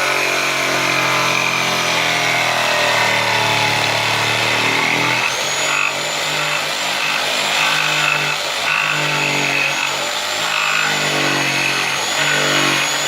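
Electric power tool motor running under load. It holds a steady pitch for about five seconds, then surges and eases roughly once a second as it works.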